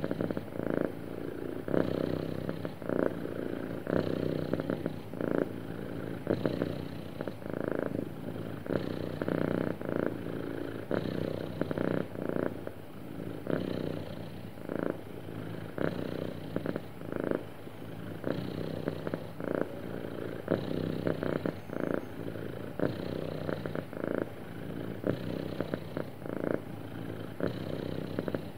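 Domestic cat purring steadily, the purr swelling and easing with each breath about every two seconds: a relaxed, contented cat.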